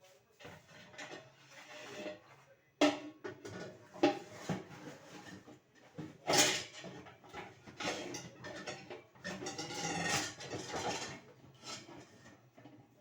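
Plastic food containers, lids and pots being handled and set in place, with irregular knocks and clatter. The sharpest knocks come about three, four and six seconds in.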